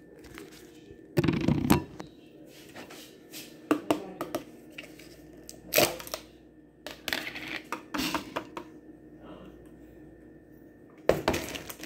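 Kitchenware being handled: clinks and knocks of a metal spoon and plastic containers in scattered bursts, the loudest cluster just over a second in and another near the end.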